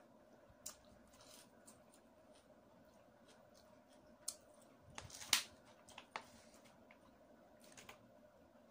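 A person eating rice by hand: faint chewing and small mouth and finger clicks, with a short cluster of louder clicks and rustling about five seconds in.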